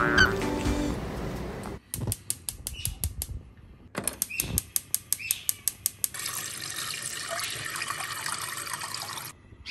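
Briefly the tail of background music, then a gas stove's igniter clicking rapidly, about seven clicks a second, in two runs. After that, tap water runs steadily into a pot for about three seconds and cuts off suddenly.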